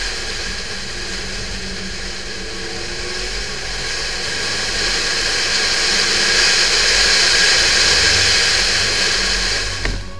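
Porsche 911 (996) flat-six running as the car drives at speed, largely buried under a loud rush of wind and road noise. The noise swells through the middle and drops away with a click near the end.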